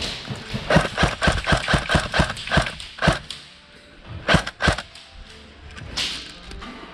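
A quick run of thumps, about four a second for roughly two seconds, then a few more spaced out, with two close together a little past the midpoint.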